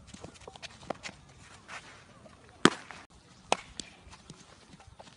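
Sharp smacks from baseball infield practice, a ball struck and caught. The loudest comes a little past halfway, with lighter ticks and shuffling footsteps on the dirt infield between them.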